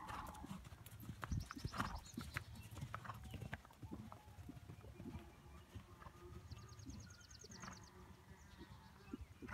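Horse's hoofbeats on arena sand: an uneven run of soft thuds and ticks.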